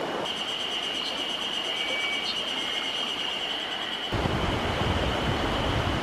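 Mountain stream water rushing over rocks, with a steady high-pitched tone above it; about four seconds in the water becomes louder and deeper.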